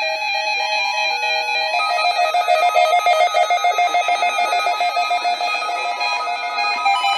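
Several weather radio receivers sounding their electronic alert beeps and tones at once for a required weekly test, many short high-pitched notes overlapping and stepping in pitch, growing busier and louder about two seconds in.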